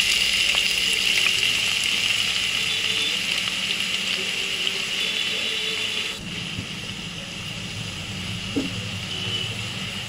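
Chopped onions sizzling in hot oil with cumin seeds in a kadai: a steady frying hiss that is loudest at first and eases a little about six seconds in.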